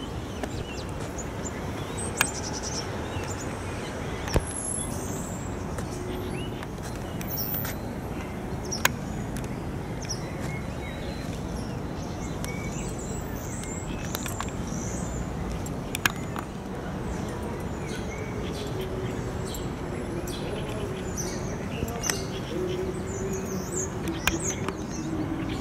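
Small birds chirping now and then over a steady outdoor background noise, with a few sharp clicks. Near the end a held, pitched sound comes in.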